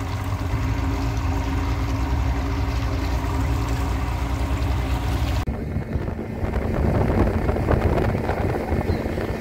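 Boat motor running steadily under way, with wind on the microphone. About halfway through it cuts abruptly to wind and splashing water over a steady low hum.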